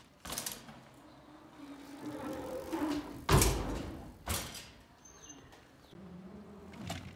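A mountain bike being ridden, with a series of knocks and rattles. The loudest is a heavy thump a little over three seconds in.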